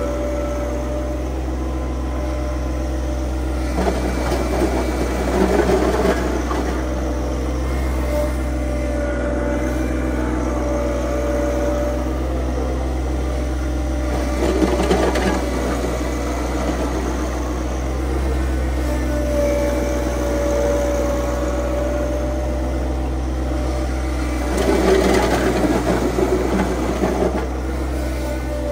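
Tractor engine running steadily, with a high tone that comes and goes. Three stretches of louder, rougher noise about four, fourteen and twenty-five seconds in.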